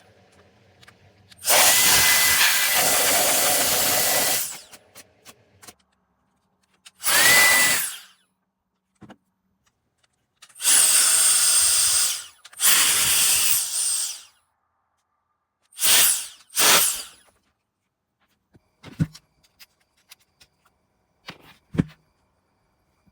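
Cordless electric air duster's high-speed fan motor blowing in six short bursts of one to three seconds each, a thin whine over the rush of air. A few small clicks near the end.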